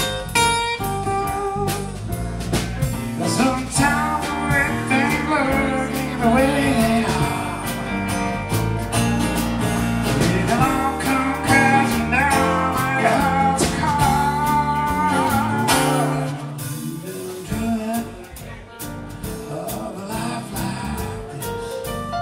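Live jazz-blues band playing an instrumental break, with acoustic guitar and a lead melody line soloing over it. The playing drops quieter about three-quarters of the way through.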